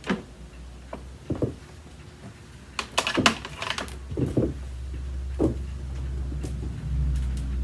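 Clicks and knocks from an upright vacuum cleaner being handled while its power cord is plugged in, with a sharp cluster of clatter about three seconds in. A low rumble builds from about halfway and grows louder near the end.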